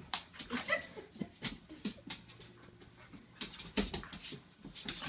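A border collie and a young border collie puppy play-fighting: dog noises coming in short, irregular bursts, loudest a little after the middle.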